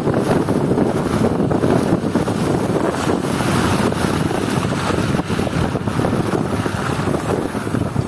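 Vehicle driving along a snowy road: steady engine and tyre noise, with wind buffeting the microphone.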